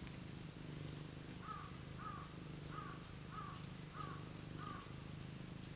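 A domestic cat purring steadily, with a run of six short, evenly spaced calls, about two-thirds of a second apart, starting about a second and a half in.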